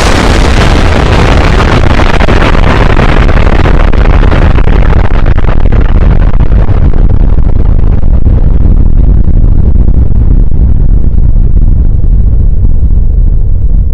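Explosion sound effect: a sudden, very loud blast that turns into a long, heavy rumble, its hiss slowly dying away while the deep rumble goes on.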